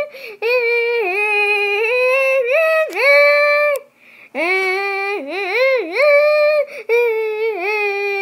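A high-pitched voice singing a wordless tune of held notes that dip and swoop in pitch, breaking off briefly about four seconds in.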